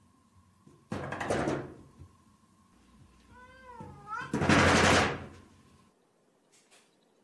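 A sliding glass-paned door rattling hard in its frame twice, with a cat's single meow between the two rattles.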